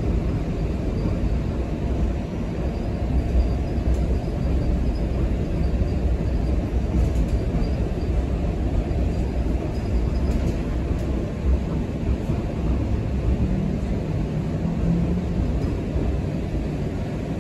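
Steady rumble of a TTC Flexity Outlook low-floor streetcar running along its tracks, heard from inside the passenger cabin, with a faint low hum joining in over the last few seconds.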